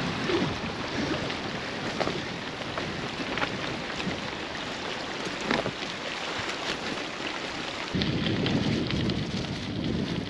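Heavy rain falling, a dense steady hiss scattered with many sharp drop ticks. About eight seconds in, a deeper, louder rumble joins.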